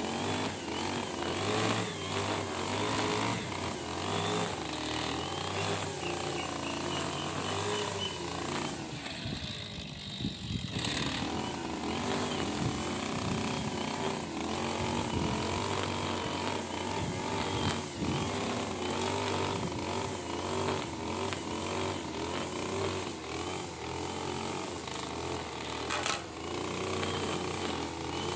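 Backpack brush cutter's two-stroke engine running as its cutting line trims long grass.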